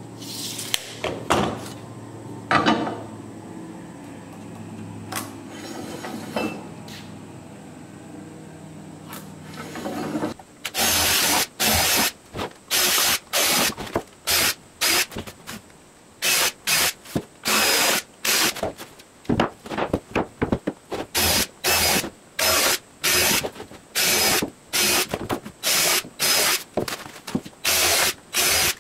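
A few scattered knocks and clicks, then from about ten seconds in a cordless drill runs in many quick short bursts, boring into a pine 2x4.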